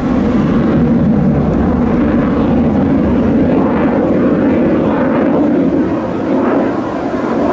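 Jet noise from a Dassault Rafale C's twin Snecma M88 turbofans as the fighter pulls a tight display turn. A loud, steady rumble that swells and eases slightly without a break.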